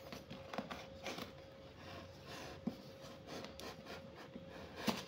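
Hand brushing and tapping on taped cardboard shipping boxes: faint rubbing with a few light knocks, the clearest near the end, over a steady faint hum.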